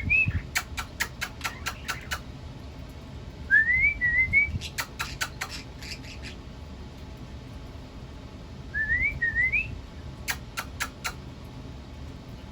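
A pet bird whistles a short rising tune three times, mimicking its owner's whistle. Each phrase is followed by a quick run of sharp clicks.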